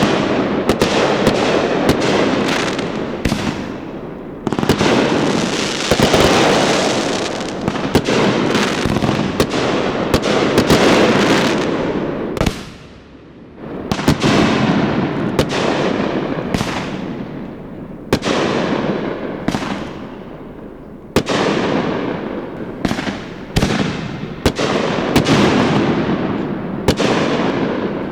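Aerial fireworks going off in rapid succession, with dense overlapping booms and crackling from the bursting shells and a short lull about halfway through.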